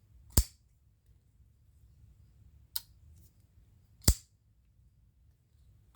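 Sharp metallic clicks of a folding pocket knife's blade being worked open and shut: two loud snaps about half a second and four seconds in, and a fainter click near three seconds.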